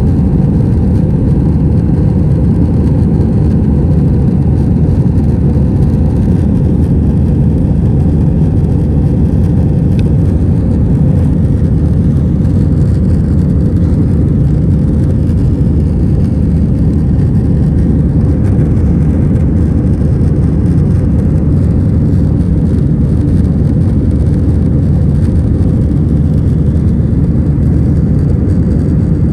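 Airbus A320 cabin noise: the steady, loud, low rumble of the jet engines and airflow, unchanging throughout.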